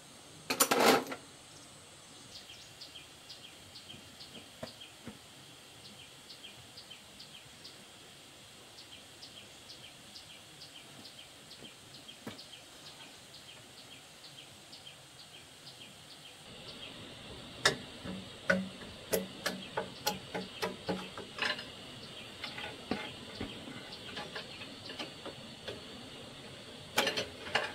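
Hand work on a single-cylinder diesel engine: a loud clatter about half a second in, a run of sharp knocks in the second half, and another clatter near the end. Under it runs a steady high chirping about three times a second.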